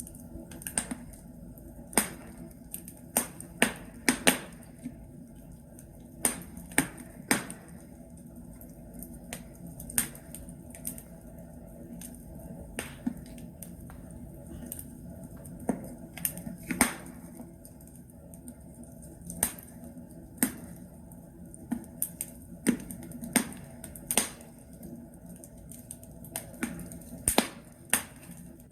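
Wood logs burning in a fireplace, crackling with irregular sharp pops, sometimes several in quick succession, over a steady low background noise of the fire.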